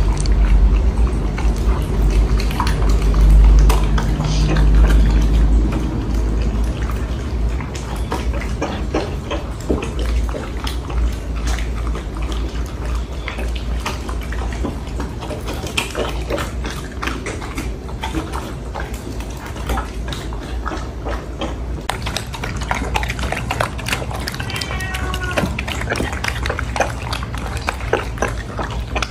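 Two Old English Sheepdogs eating wet food, a meat patty in bone broth: steady wet lapping, slurping and chomping with lots of lip-smacking, a piggish racket at the bowls.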